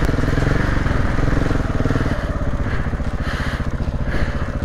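KTM 690 single-cylinder motorcycle engine running steadily as the bike rides up a loose gravel track, with the tyres crunching over the stones.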